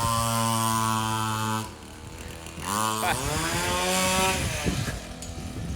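Off-road race car's engine held at high revs, dropping off about one and a half seconds in. It is revved up sharply again a second later and falls back to a low idle.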